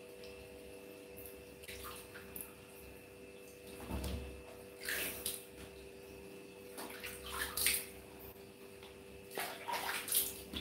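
Water splashing and dribbling in a small plastic bath scoop that a baby macaque is standing in: several short splashes a second or two apart, over a faint steady hum.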